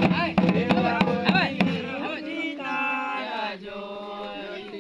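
Double-headed barrel drums beaten in a fast rhythm under men singing a Santali Sohrai song; the drumming stops about two seconds in and the singing carries on alone.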